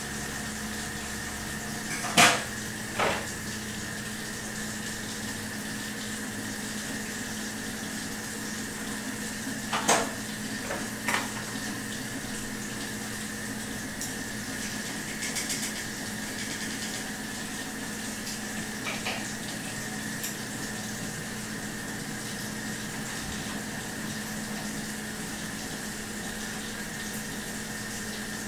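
Steady electrical hum and hiss with a few short, sharp knocks, two near the start and two about ten seconds in.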